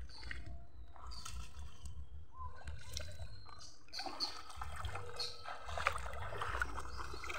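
Shallow muddy water sloshing and trickling around a person wading beside a staked gill net, over a steady low rumble.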